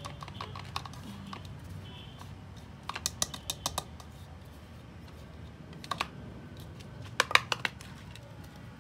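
Sharp tapping on an upturned plastic bowl to knock grated lemon peel out into a plastic container: a quick run of taps about three seconds in, a single tap near six seconds, and another quick run a second or so later.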